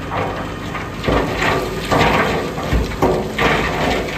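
Load of rotten rock sliding out of a raised tipper truck bed and clattering onto the gravel in uneven surges, five or six heavier rushes, over the low steady hum of the truck's engine.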